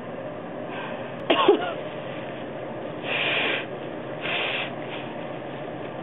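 One sharp, explosive cough from a person who is sick with a cold, about a second in, ending in a short voiced tail; then two short breathy bursts a second apart.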